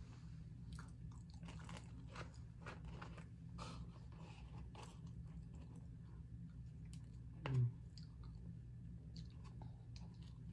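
Close-up chewing and crunching of a McDonald's Filet-O-Fish sandwich and fries: many short crisp crunches, over a steady low hum. About seven and a half seconds in there is one short, louder falling vocal sound.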